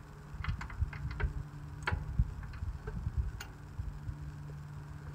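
Irregular light clicks and metal taps from hand tools working at a stuck part on a garden tractor.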